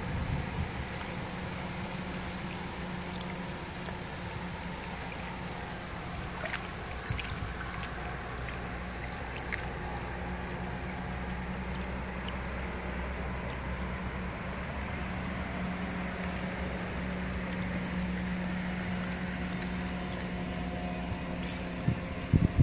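A small boat's motor running at a steady, even pitch, with water washing along the hull.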